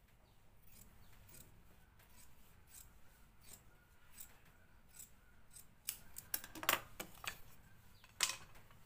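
Tailor's scissors snipping through cloth in a series of short cuts, trimming about 1 cm off a cloth waistband strip. The loudest snips come about six to seven seconds in and again a little after eight.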